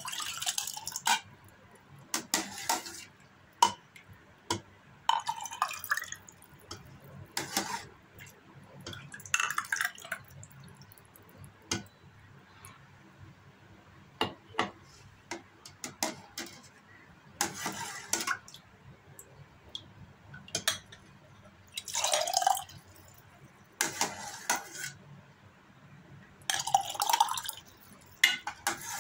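Steel ladle clinking against an enamel pot and pouring a thick milky sago drink into a glass, in repeated scoops: short splashy pours about a second long, with sharp clinks of metal on pot and glass between them.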